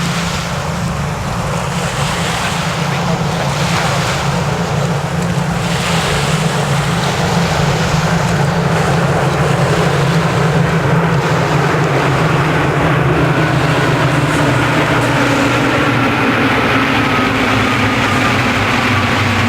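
Steady low engine drone that grows slowly louder, with wind rushing over it; a faint falling whine in the last few seconds.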